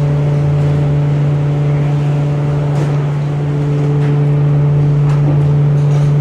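Plywood-mill machinery running with a loud, steady low hum that holds an even pitch, along with a few fainter steady tones above it. A faint knock of veneer being handled comes about three seconds in.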